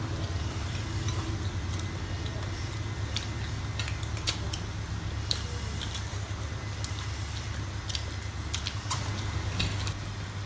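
Forks and fingers handling food at a table: scattered light clicks and taps of cutlery against plates and trays, over a steady low hum.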